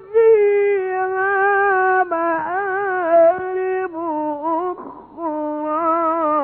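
A male Quran reciter chanting in the melodic tajwid style: long held notes with wavering ornaments, split by a few short breaths, the phrase ending abruptly near the end.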